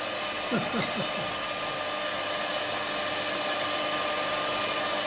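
Small electric hand mixer running steadily, its beaters whipping matcha powder, sugar and hot water in a glass into dalgona foam.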